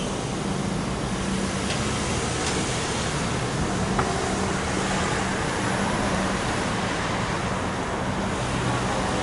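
Road traffic: cars driving across a level crossing after the boom gates have lifted, a steady rush of engine and tyre noise.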